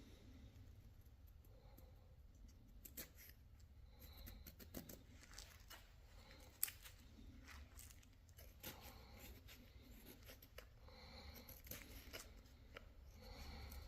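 Faint, irregular scraping and clicking of a hand chisel paring a maple honey-dipper blank, with one sharper click about two-thirds of the way through.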